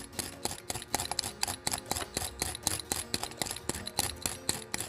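A metal vegetable peeler shaving a chocolate bar: rapid, repeated scraping strokes, several a second, as curls of chocolate are pared off.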